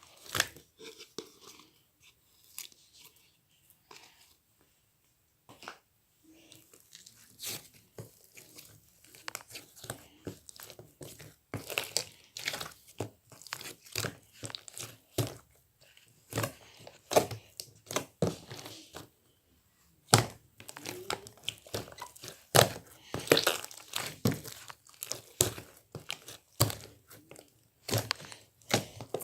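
Hands squishing, poking and stretching slime, making irregular sticky pops and crackles; sparse at first, then coming thick and fast from about six seconds in.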